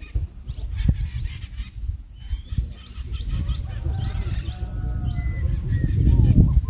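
Wind rumbling on the microphone, with short bird calls over it that come more often in the second half, some rising and falling in pitch.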